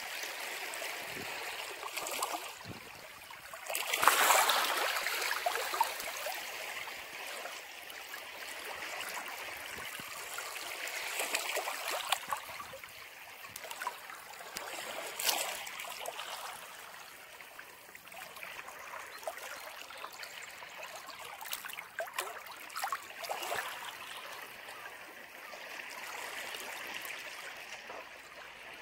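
Ocean waves washing and splashing against a rocky shore, coming in a string of surges every few seconds, the loudest about four seconds in.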